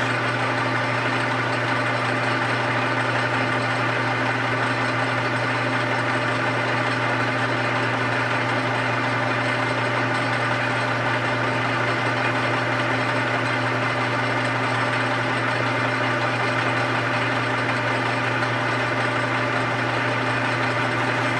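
Metal lathe running with a steady, even hum while a parting tool is fed slowly into a spinning 3/4-inch drill rod, making a plunge cut.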